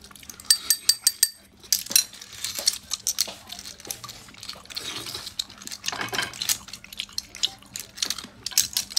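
Cooked clam shells clicking and clattering against each other and against a stainless steel bowl as clams are picked out by hand. It comes as many short sharp clicks, with a brief metallic ring early on.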